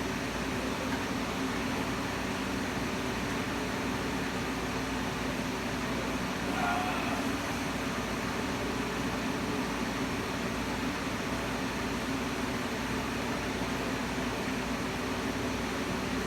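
Steady hum and hiss like a fan or air conditioner running, even throughout, with a faint brief tone about seven seconds in.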